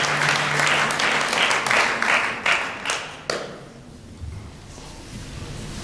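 Audience applauding, dying away with a few last separate claps about three seconds in; a few soft low notes follow.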